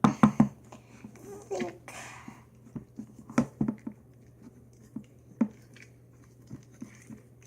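Slime being stirred with a stick in its container: irregular wet squelches and clicks, with a quick cluster of loud ones at the start and scattered ones after.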